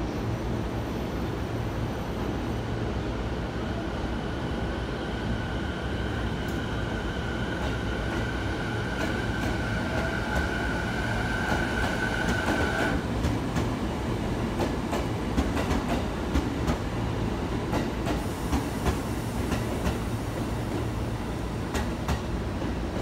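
JR East 209 series electric train moving past. Its traction motors give a steady whine that cuts off suddenly about halfway, then the wheels click over the rail joints many times. A low, steady rumble runs underneath.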